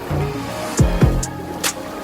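Background music: an electronic track with a held bass line and deep kick-drum hits that drop in pitch, two of them close together about a second in.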